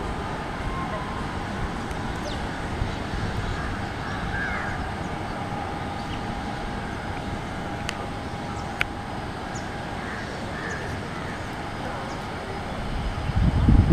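Steady distant jet noise from an Airbus A320neo's CFM LEAP-1A engines as it rolls along the runway, with crows cawing a few times over it. A low rumble swells near the end.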